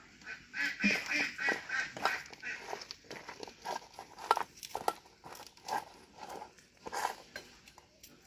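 Hands squishing and mixing chopped sponge gourd in a paste inside a stainless-steel bowl: scattered soft clicks and squelches. Bird calls in rapid repeated bursts sound in the background during the first few seconds.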